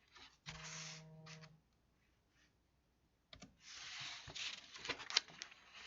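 Faint clicks and rustling close to the microphone, with a brief low hum about half a second in.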